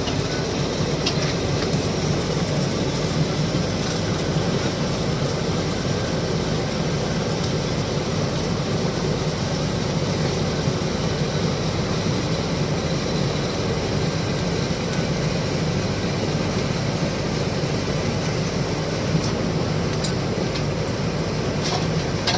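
Stick (SMAW) welding arc crackling steadily as a pipeline weld is run with an electrode, over a steady low hum.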